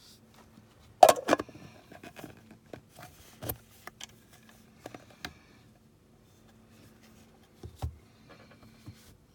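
Handling noise in a small room: a string of sharp clicks and knocks of small hard objects being moved, the loudest cluster about a second in.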